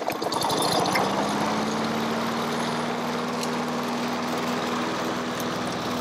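Gas push mower's small engine just after a pull-start, coming up to speed in the first second and then running steadily. It runs on a newly replaced carburetor gasket, the fix for its stalling, black smoke and hard starting.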